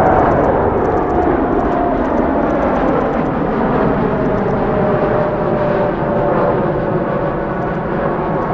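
Boeing 787-9 Dreamliner's GEnx turbofans at takeoff thrust on a departure climb-out: a loud jet roar with a whining tone that slowly falls in pitch.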